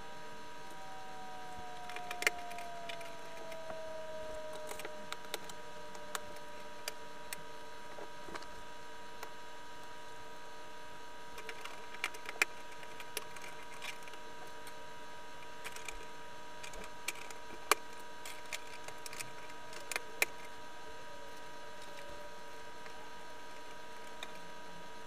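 Scattered light clicks and taps from handling the plastic toy barn and its packaging, over a steady electrical hum. In the first few seconds a faint tone slides down in pitch.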